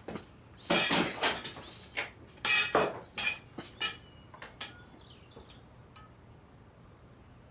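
A quick run of sharp clattering knocks and clinks, about a dozen over four seconds.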